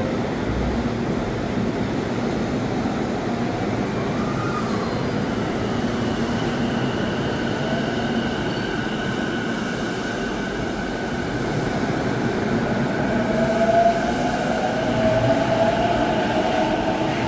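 Keihin-Tohoku Line E233-1000 series electric train pulling out of a station: wheels and running gear rumble, and the traction motors whine, the whine rising in pitch as the train gathers speed over the last few seconds.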